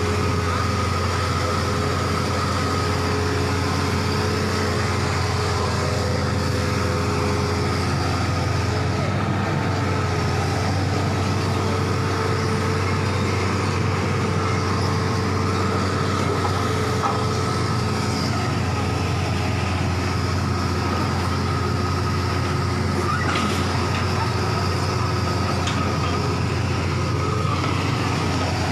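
Hitachi crawler excavator's diesel engine running steadily close by, a constant low drone.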